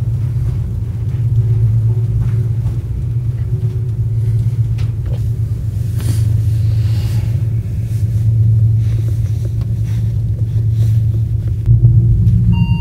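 Steady low rumble inside an aerial cable car cabin as it travels along the cable.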